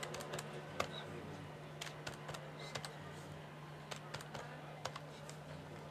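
Keys of a large desk calculator pressed one by one through its plastic wrapping, making irregular sharp clicks with uneven gaps between them, over a steady low hum.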